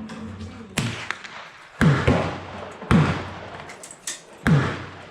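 Rifle shots on a shooting range, one roughly every second, each a sharp crack with a short echoing tail. There are five loud shots and a fainter one just before the last.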